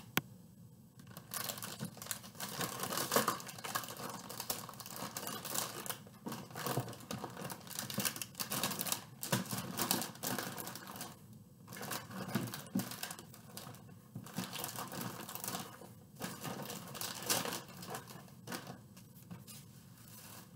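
Plastic packaging crinkling and rustling as it is handled, in dense irregular crackles with a few brief pauses.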